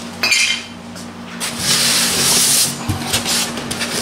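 Foam packing insert being pulled up out of a cardboard box: a brief squeak near the start, then a loud scraping rub of foam against cardboard for about a second, followed by a few light knocks.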